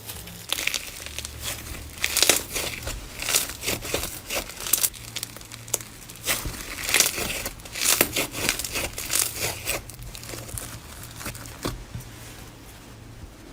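Slime being squeezed and pressed by hand, giving a dense run of crinkly crackles and pops that thins out near the end.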